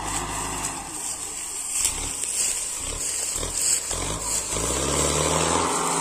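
Mahindra Arjun tractor's diesel engine working under load as it hauls a trolley of harvested sugarcane out of the field, rising in pitch as it revs up about halfway through.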